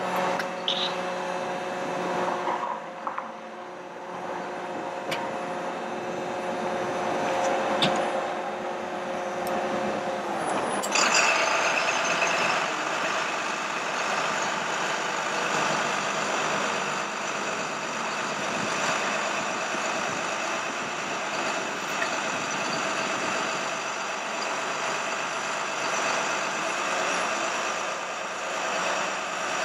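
Bucket truck running steadily with several steady whines; about eleven seconds in it gets louder and noisier, with higher whines joining in.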